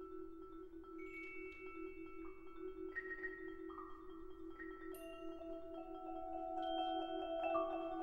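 Percussion orchestra playing a soft mallet passage: a steady, pulsing low marimba note held under high, bell-like mallet notes that are struck one at a time and left ringing. It grows louder toward the end as more notes join in.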